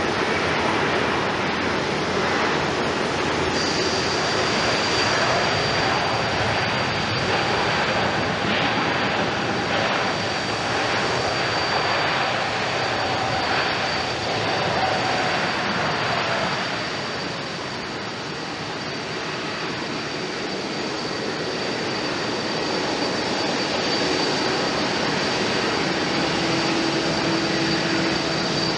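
Boeing 777-200ER's jet engines during its landing rollout: a loud, steady rush of engine noise, typical of reverse thrust slowing the airliner, with a thin high whine over it. The noise eases about seventeen seconds in as the aircraft slows, and the engines carry on more quietly.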